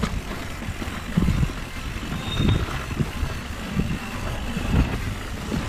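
Wind rumbling in uneven gusts across the microphone, with the rattle of a mountain bike descending a rough downhill trail.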